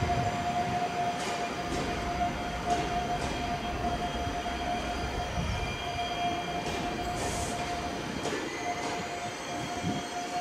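PKP InterCity passenger coaches rolling past on the rails, a steady rumble of wheels with a single steady high-pitched tone over it and a few faint clicks.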